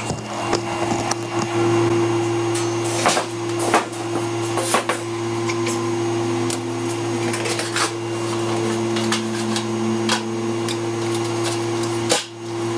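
Steady electric hum of running shop machinery, with several knocks and metallic clatters as a steel sheet is handled and laid onto the slats of a plasma cutting table.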